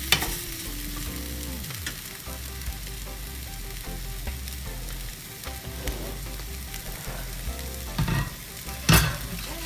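An onion and tomato base sizzling in a pan while a spoon stirs it, with small scraping clicks. A sharp knock near the end, likely the spoon tapped on the pan.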